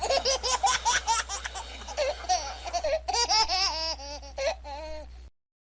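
A baby laughing in quick repeated giggles over a low steady hum, cutting off suddenly about five seconds in.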